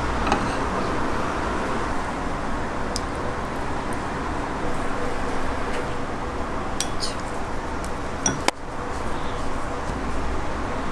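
A few light clinks of a spoon against ceramic dishes over a steady background hiss.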